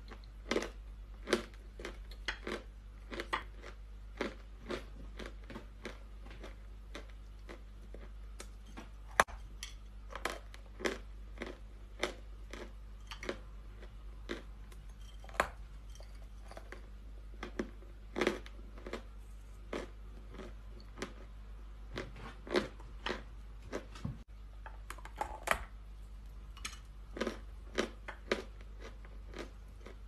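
Close-up crunching of hard white chalk being bitten and chewed: sharp, crisp crunches at an irregular pace of about one or two a second, over a faint steady low hum.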